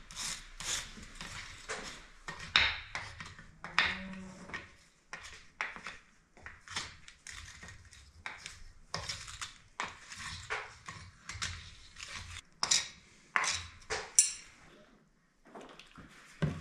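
Light, irregular metallic taps and clinks of steel tools on the forged steel latch, some a little sharper than others, with a short pause near the end.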